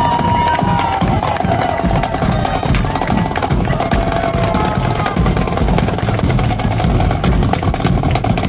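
Live street percussion: bass drums and clashing hand cymbals played in a fast, dense rhythm.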